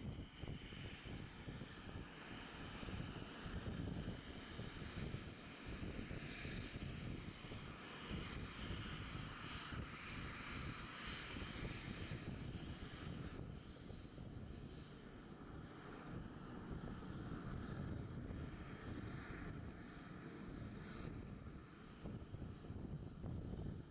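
Boeing 737 jet engines running at low taxi thrust: a steady rumble with a whine on top that swells for a few seconds near the middle.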